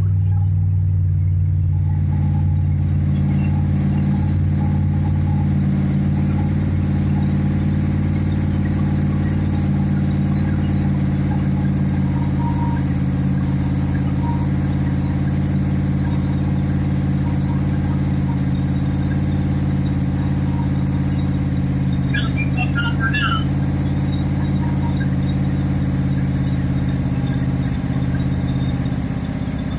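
Freshly rebuilt 1972 Pontiac 350 V8 running steadily, its engine note holding even throughout. A few faint, brief squeaks come in a little under three-quarters of the way through.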